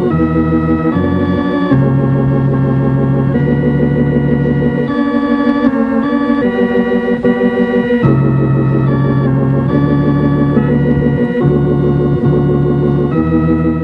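Organ music: held chords that change every second or two at a steady level.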